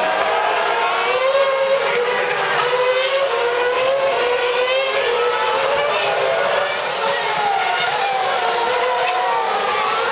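Several 2009 Formula One cars' 2.4-litre V8 engines revving hard as they pass. Their notes overlap, each pitch climbing and dropping as the cars shift gear and brake for and power out of the corners.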